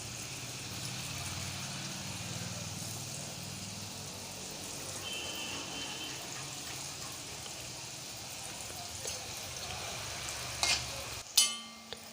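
Gulab jamun balls of wheat-flour and milk-powder dough frying in medium-hot oil, with a steady sizzle. A couple of sharp clicks come near the end, and the sizzle cuts off suddenly shortly before the end.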